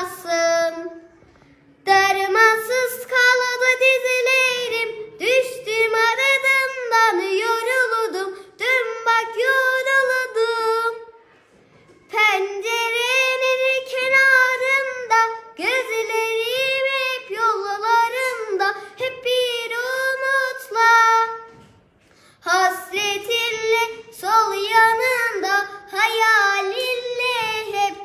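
A young girl singing solo and unaccompanied, in long phrases with a wavering, ornamented melody, broken by short pauses for breath.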